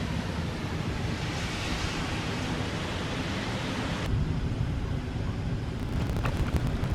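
Steady rush of wind and ocean surf, with wind rumbling on the microphone. The sound shifts abruptly about four seconds in.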